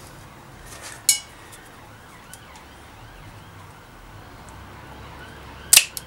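Cable cutters snipping through bicycle gear cable housing: one sharp snap near the end. About a second in, a short metallic clink with a brief ring.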